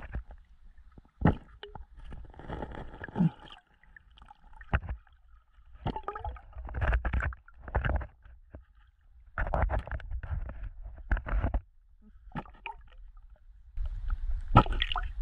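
Muffled water movement and bubbling heard from underwater, in irregular bursts a second or two long with sharp knocks between them, louder near the end.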